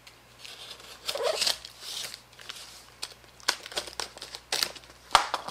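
Packing tape being picked at and peeled off a cardboard box, with crinkling and tearing rustles. Three short, sharp clicks come in the second half, the last and loudest near the end.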